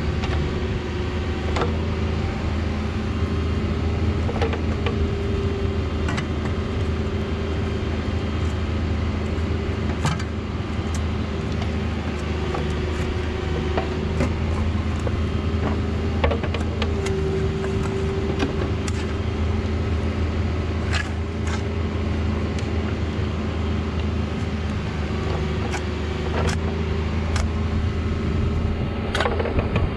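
Cat 304 mini excavator's diesel engine running steadily under digging load, its hum swelling and easing as the hydraulics work the boom and bucket. Scattered sharp clicks and knocks come from the bucket working the soil.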